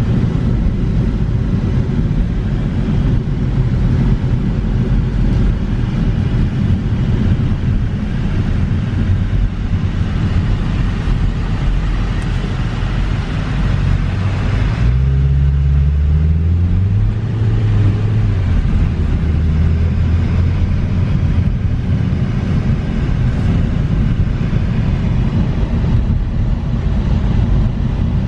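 Road and tyre noise with the 2014 Ford Focus's 2.0-litre four-cylinder engine running while driving, heard from inside the car. About halfway through the hiss drops and the engine note rises twice in quick succession.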